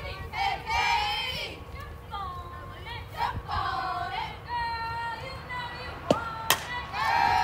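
High-pitched voices calling out and chanting from the dugouts and stands, with a sharp crack about six seconds in as the softball bat meets the ball, followed by more shouting.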